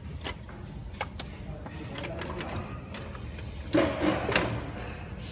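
Plastic clicks and knocks from the white plastic housing of a robot vacuum being handled and turned over, with a louder clatter and scrape about four seconds in.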